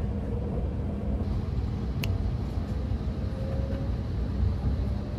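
Steady low rumble of an E261-series electric express train running, heard inside the passenger car, with one sharp click about two seconds in.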